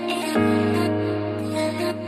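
Background music: soft held chords, with a new chord coming in about a third of a second in.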